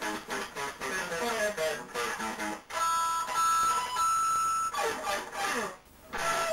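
Acoustic guitar being picked note by note, then a few clear high notes left ringing for about two seconds in the middle before the picking resumes.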